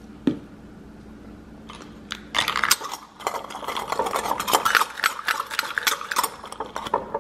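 Ice cubes clinking and rattling against a glass jar as a drink is stirred, in a fast dense run of clinks from about two seconds in. It starts with a single knock of glass on the counter.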